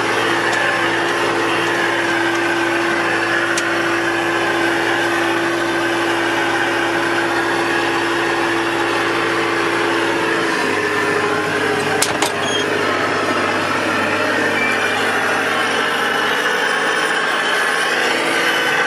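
A small vehicle's engine runs steadily while it is driven slowly over a dirt track. About ten seconds in the engine note changes, as the throttle eases. A sharp knock comes a moment later.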